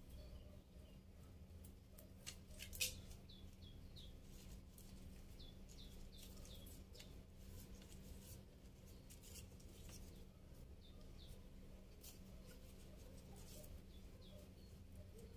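Faint handling sounds of a plant cutting being tied to a stake with string, with a few sharp clicks about two to three seconds in. A small bird chirps over and over in short, falling notes.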